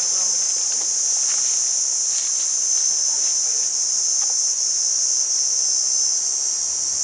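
Loud, steady chorus of insects in forest scrub: a continuous shrill, high-pitched drone that does not let up.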